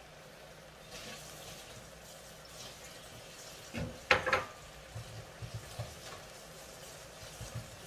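Onions, bell peppers and sliced sausage sizzling faintly in a sauté pan. About four seconds in, a loud clatter of dishes with a short ring, followed by a few lighter knocks.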